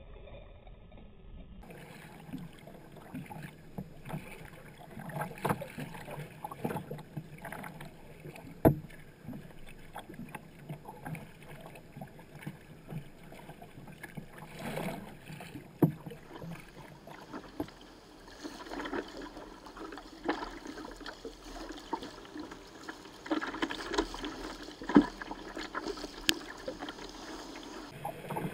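Sea kayak being paddled: the double-bladed paddle dipping and splashing in an uneven rhythm, with water sloshing against the hull and a few sharp loud clicks.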